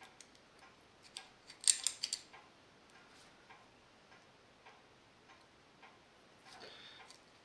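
Small metal hub parts clicking together in a short cluster about one and a half to two seconds in. Underneath runs a faint, even tick about every 0.6 s, like a clock, and there is a brief soft scrape near the end.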